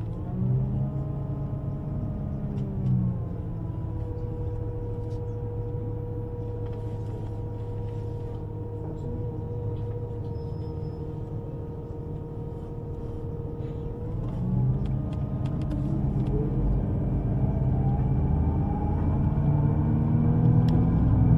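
Electric U-Bahn train running, with a low rumble and the steady hum of its traction motors. From about two-thirds of the way in, the motor tones rise in pitch and grow louder as the train accelerates.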